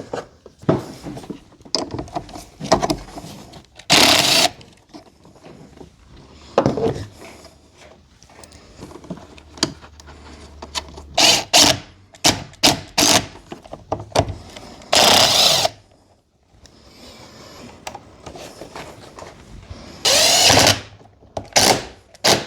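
A handheld power drill runs in a few short bursts of about half a second each, between clicks and knocks of tools and cables being handled in an engine bay.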